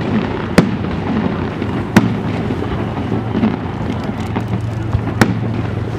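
Aerial fireworks shells bursting: three sharp bangs, about half a second, two seconds and five seconds in, with a few lighter cracks just before the last, over a continuous rumble of distant bursts and echoes.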